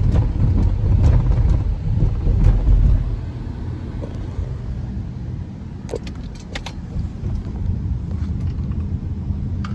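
Low, steady rumble of a car in motion, stronger in the first three seconds, with a few light clicks about six seconds in and again near the end.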